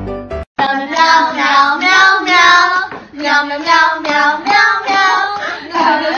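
A high, child-like voice singing a song, taking over after a piano tune cuts off about half a second in.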